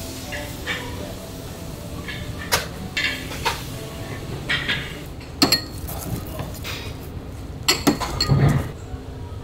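Kitchen clatter: dishes and utensils knocking and clinking now and then, over a steady busy background with faint voices.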